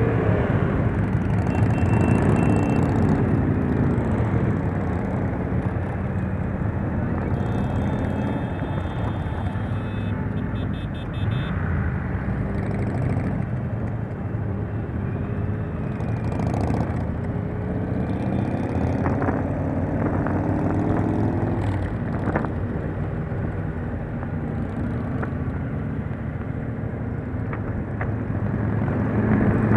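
Motorcycle engines and road traffic running, the engine pitch rising and falling. A short run of high beeps partway through.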